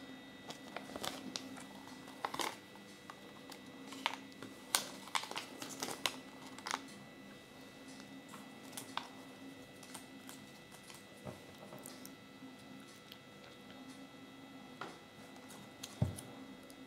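Small hard plastic parts being handled: irregular faint clicks and taps, clustered in the first half, over a steady low hum.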